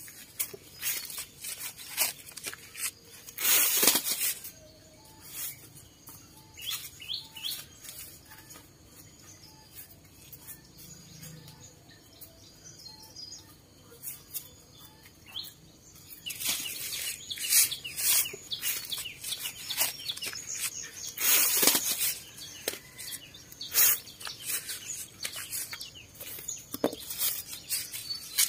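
Dry corn husks crackling and tearing in bursts as ears of corn are husked by hand, loudest near the middle and again later on, with a few bird chirps.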